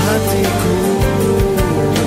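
Background music: a Malay-language pop love song, with a long held note in the middle over steady accompaniment.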